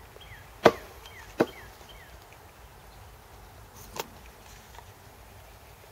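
A package of bees being knocked down to shake the bees to the bottom of the cage: two sharp knocks less than a second apart, then a lighter knock about four seconds in.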